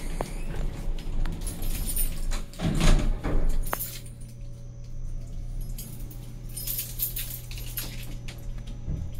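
Handling noise from a phone rubbing against a T-shirt and backpack straps: rustling and clattering with metallic jingling, loudest about three seconds in. After that a steady low hum from the elevator runs under a few light clicks.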